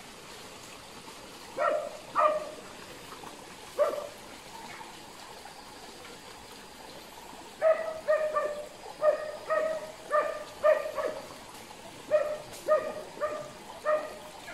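Hunting dog barking: a few separate barks, then a quick run of about a dozen barks, roughly two a second, over a steady faint hiss.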